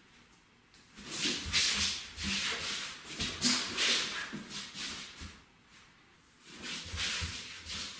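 Feet in socks dragged across a wooden floor during waltz steps, making a string of rubbing swishes with a short lull past the middle. This is the sound of feet that slide along the floor instead of being lifted.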